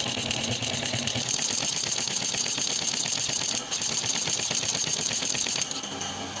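Staple attacher machine running, its mechanism cycling in a fast, even clatter of about ten clicks a second that stops near the end.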